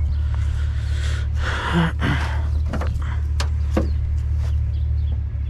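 Steady low rumble of an idling vehicle engine, with a brief rustling scrape about a second and a half in and a few sharp knocks as scrap is handled.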